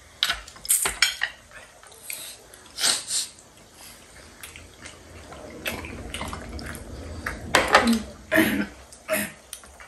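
Metal forks clinking and scraping on ceramic plates during a meal, in scattered short knocks and scrapes.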